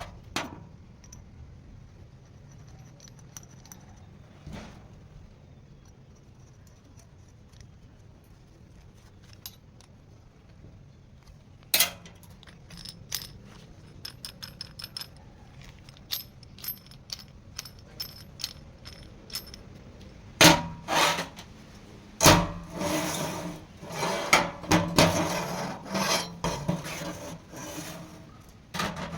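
Metal parts and hand tools being handled: scattered light clicks at first, then from about two-thirds of the way in a run of loud clanks and knocks mixed with scraping.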